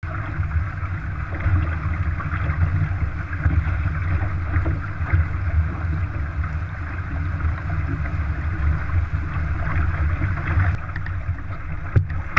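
Wind buffeting the microphone and water rushing past the hull of a Shaw 650 sportsboat under sail, a steady low rumble with a hiss over it. A single sharp knock near the end.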